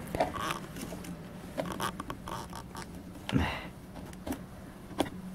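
Scattered rustling, scraping and light clicks of someone handling things and moving about, with a short louder scuff about three seconds in.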